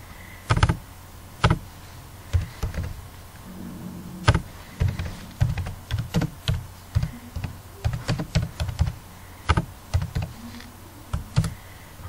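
Typing on a computer keyboard: irregular key clicks at an uneven pace, with a few louder, heavier key strikes among the lighter ones.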